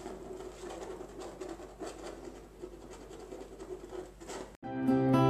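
Small paintbrush scratching and dabbing over textured paint on a canvas in short, light strokes. About four and a half seconds in it cuts off and music starts.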